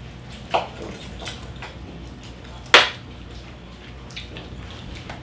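Close-miked eating of roast pig: wet chewing and lip smacks, with one sharp smack nearly three seconds in and a smaller one about half a second in.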